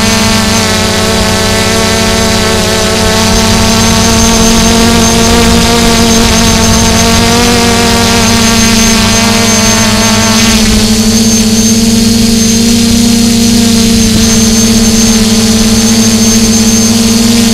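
Quadcopter drone's motors and propellers buzzing loudly and steadily, picked up close by the drone's own camera, as it descends. The upper part of the whine drops away about ten seconds in.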